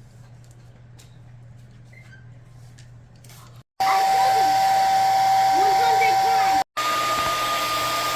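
Quiet room with a few light taps, then a hair dryer switches on about four seconds in, running loud and steady with a whining tone, drying freshly brushed-on Mod Podge. It cuts out for an instant near seven seconds and comes back with a higher whine.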